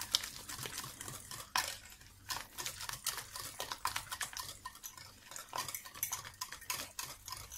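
A utensil stirring thickened lemon cream in a saucepan, clicking and scraping against the pan in quick, irregular taps as the last of the butter is mixed in.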